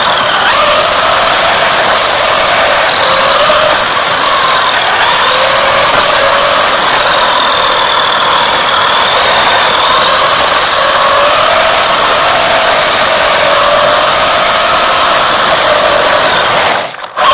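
The electric motor and drivetrain of a WLToys 144001 RC buggy whining loudly as it drives over asphalt, the pitch wavering up and down with the throttle, over tyre and road noise. The sound drops away briefly near the end.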